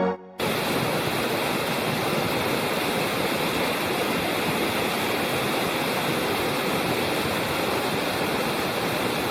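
Steady rush of water from a mountain stream, coming in about half a second in after a brief gap.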